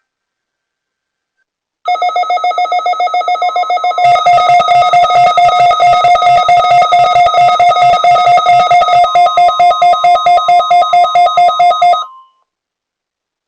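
Weather radio alert tone for a Required Weekly Test: a loud electronic tone pulsing rapidly, getting louder and fuller about two seconds after it starts, and cutting off abruptly near the end.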